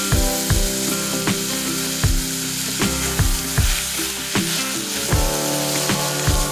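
Mushrooms and capsicum sizzling as they fry in a pan and are stirred, over background music with a steady beat.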